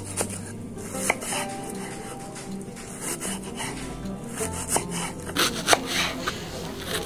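Kitchen knife chopping an onion on a wooden cutting board: a few separate cuts, then quick repeated knocks of the blade on the board near the end.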